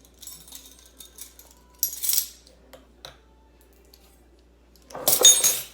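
Spoon clinking and scraping against a mixing bowl, with light clicks, a short scrape about two seconds in and a louder one near the end.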